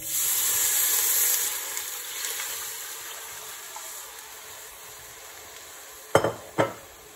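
Liquid poured from a glass measuring jug into a hot enamelled Dutch oven of sautéed vegetables and spices, hissing and sizzling loudly as it hits the hot pan, then dying down to a quieter hiss over several seconds. Two short knocks near the end.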